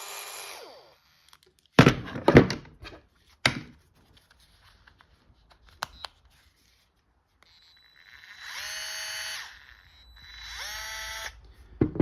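A gyroscopic cordless screwdriver's motor running in short bursts, twice spinning up quickly to a steady whine near the end, with a motor run dying away at the start. Between the runs, loud clunks and clicks of the tools being handled.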